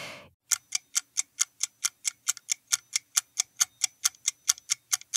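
Quiz countdown-timer sound effect: a clock ticking fast and evenly, about five ticks a second, starting about half a second in.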